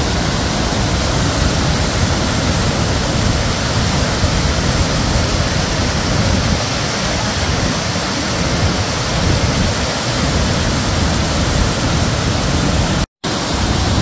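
Nugget Falls, a glacier-meltwater waterfall, crashing down rocky tiers: a loud, steady, dense rush of white water, broken by a split-second gap in the sound about a second before the end.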